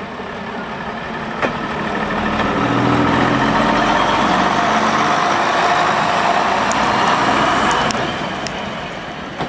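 Derby Lightweight diesel railcar passing close by: its diesel engine and wheels on the rails swell to a loud peak over the first few seconds, hold, then fade as it goes by. A sharp click about a second and a half in.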